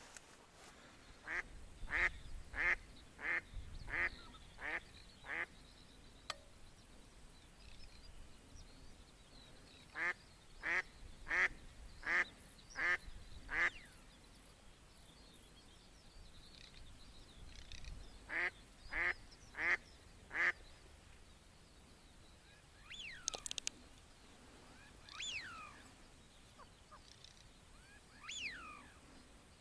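A live decoy hen duck quacking in three runs of four to seven evenly spaced quacks, about one and a half a second. Near the end come three short gliding calls from another bird.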